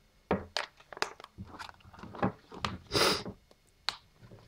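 Crinkling and rustling of a sealed clear plastic pouch being handled and pulled at to get it open: a run of short crackles, with a longer, louder rustle about three seconds in.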